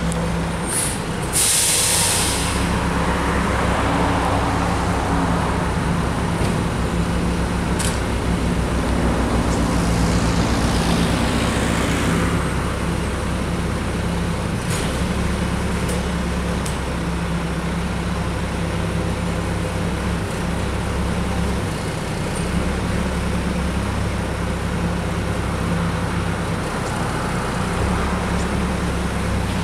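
Mack garbage truck's diesel engine running steadily at low speed, with a short, sharp air-brake hiss about a second and a half in.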